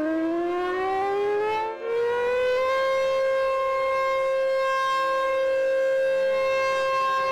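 Super Sirex outdoor warning siren sounding the attack signal, a wail. Its chord of tones climbs in pitch over the first few seconds, dips briefly in loudness partway up, then holds steady at full pitch.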